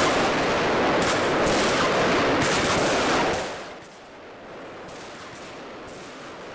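Fireworks going off: a dense, rapid crackling barrage of bangs that dies away about three and a half seconds in, leaving fainter scattered pops.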